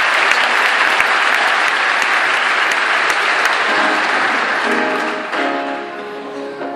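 Large audience applauding, the clapping thinning out about four seconds in as the orchestra starts to play.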